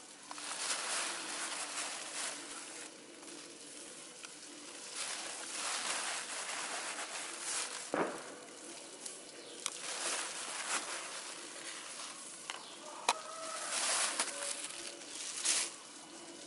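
Dry rice husks mixed with pig manure being poured from a plastic bag onto soil in a plastic basin: rustling, pattering husks and crinkling plastic in several uneven spells, with a few sharp ticks.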